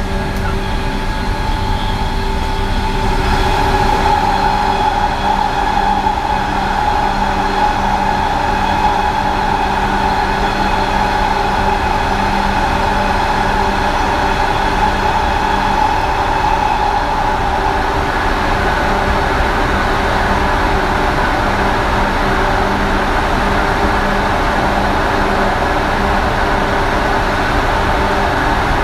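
JR West 117 series electric train running at speed, heard from on board: a steady whine from its MT54D traction motors over the rumble of wheels on rail. The whine is strongest in the first half and eases a little after that.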